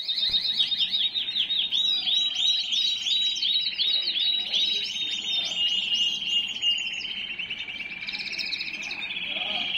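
Agate canary singing a continuous song of fast repeated trills and rolls. In the first two seconds the notes are quick downward sweeps; later the song runs on as one rapid roll.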